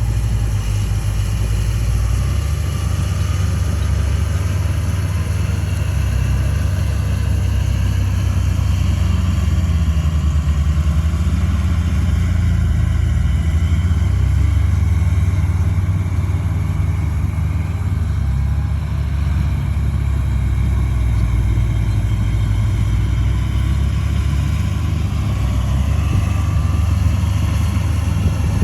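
Komatsu D31A bulldozer's diesel engine running steadily, with a faint higher whine drifting in pitch above the engine drone.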